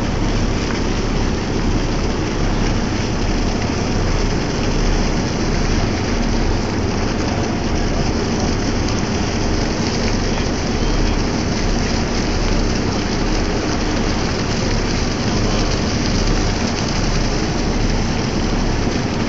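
Steady, even rushing noise aboard a whale-watching boat at sea, with a faint low hum beneath: the boat's engine mixed with wind and water.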